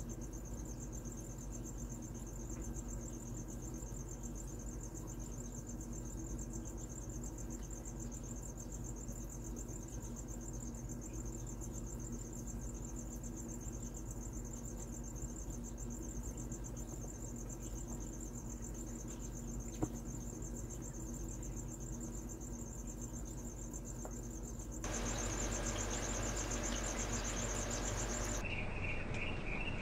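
Crickets trilling steadily in a rapid high-pitched pulse over a low steady hum. After about 25 seconds the trill gets louder, and near the end a lower, pulsing chirp joins it.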